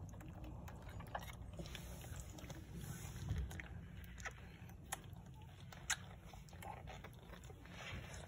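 Faint wet suckling and smacking of two-day-old French bulldog puppies nursing, mixed with rustling and a few sharp clicks from a puppy being handled. A few soft, short squeaks come in the second half.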